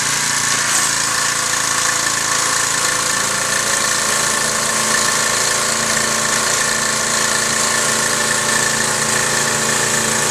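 Troy-Bilt 2700 PSI gas pressure washer running steadily, its engine note held under a constant hiss of spraying water.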